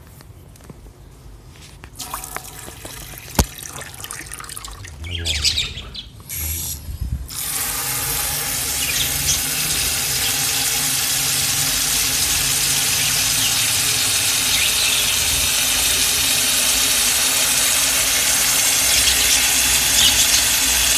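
Garden hose spray nozzle spraying water into a concrete basin: a steady hiss of water that starts about seven seconds in and holds. Before it, quieter handling of the hose with one sharp click.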